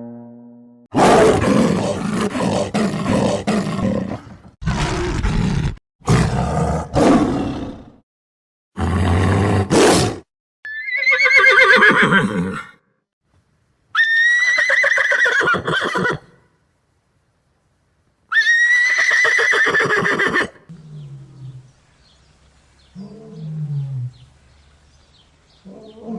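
A sequence of animal calls. Several rough, noisy blasts come first, then three high, quavering horse whinnies that drop in pitch, and near the end a few short, low grunting calls.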